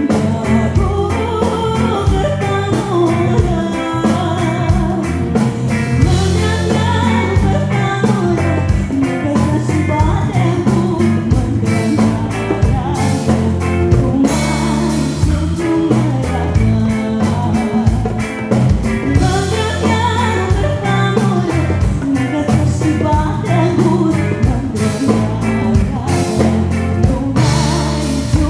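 A woman singing lead into a microphone with a live band: electric bass and guitar under her voice, over a steady beat.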